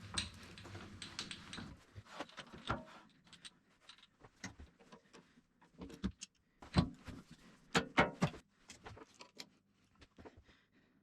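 Irregular knocks, clicks and clinks of parts and tools being handled in a workshop, with a low steady hum in the first two seconds.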